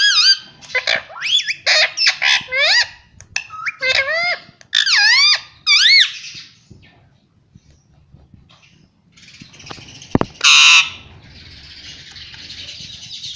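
Pet parrots chattering: a quick run of chirps and swooping whistled calls for about six seconds, then a lull, one loud harsh screech about ten seconds in, and a steady hiss after it.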